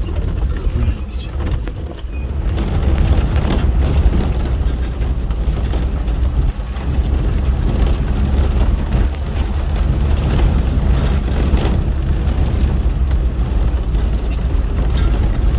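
Land Rover driving on a rough track: a loud, steady low rumble of engine and road noise, with wind buffeting the microphone.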